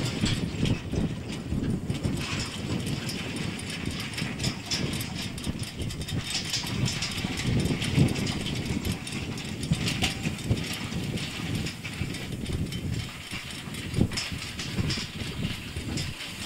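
Clydesdale horses working a horse-drawn hay stacker: hooves and the rig's rattles over a continuous low rumble of wind on the microphone, with a few sharp knocks, the loudest about eight seconds in and another near fourteen seconds.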